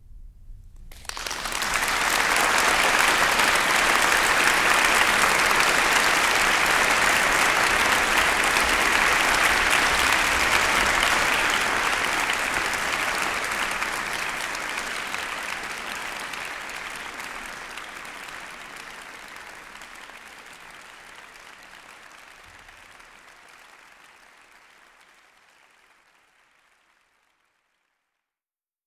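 Applause from an audience, starting abruptly, holding steady for about ten seconds, then slowly fading out to silence.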